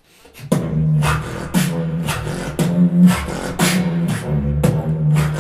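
Human beatboxing in a bathroom, its echo colouring the sound: a held bass note under sharp snare and hi-hat hits about twice a second, starting about half a second in.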